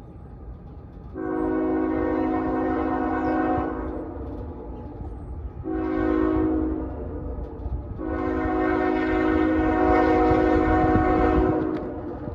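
Air horn of an approaching CN freight train's lead locomotive, a GE ES44AC, sounding a chord of several tones in three blasts: a long one, a short one, then a longer one held for about four seconds. A low rumble runs beneath.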